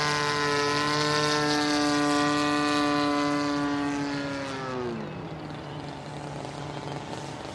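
Seagull Edge 540 RC model airplane's engine and propeller running steadily at high throttle, then throttled back sharply about four and a half seconds in, running low and quieter for the rest.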